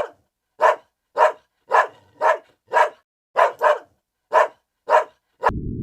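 A dog barking repeatedly, about ten short barks roughly two a second. Near the end the barking gives way to a steady low rumble.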